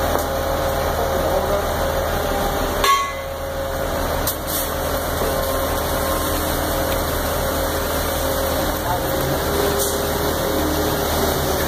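Concrete mixer truck running steadily while it discharges concrete down its steel chute, with a sharp knock about three seconds in.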